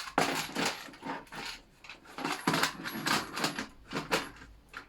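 The hard plastic quick-release base section of a motorcycle tank bag being handled and fitted against the bag's underside: irregular clatters, light knocks and scrapes.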